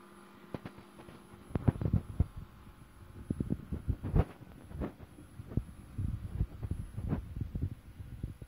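A Kolster-Brandes QVP20 405-line television's line output transformer whistle, a steady high-pitched tone near 10 kHz. From about half a second in, irregular low thumps and knocks come over it.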